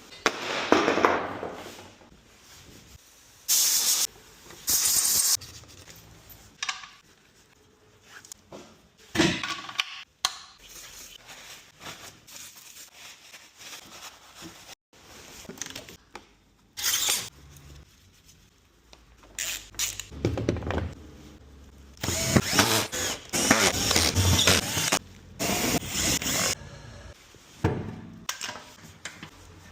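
Car workshop work: a power tool runs in several short bursts, with one longer run of a few seconds about two-thirds of the way in, and hand tools knock and clatter in between.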